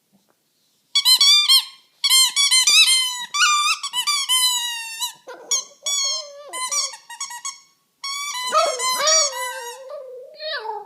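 Shih Tzu puppy whining and howling in high, wavering squeals, in several bursts; the last burst is lower and slides down in pitch.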